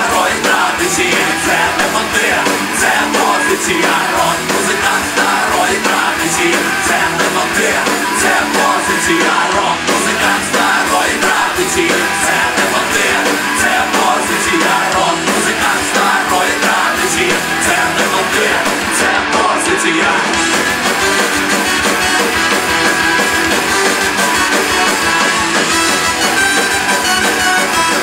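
Live ska-punk band playing a loud rock song, with electric guitars and a shouted vocal over the band.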